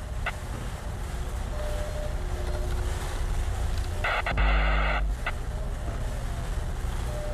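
A steady low rumble, with a loud buzzing tone lasting about a second just past the middle.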